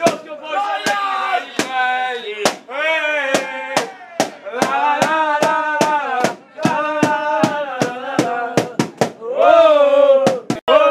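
Football supporters chanting a song together, with sharp beats keeping time about two to three times a second.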